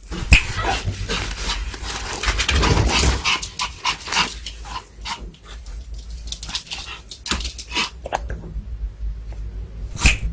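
Pomeranian whimpering, impatient for a treat, over the crackling rustle of a paper towel being unwrapped.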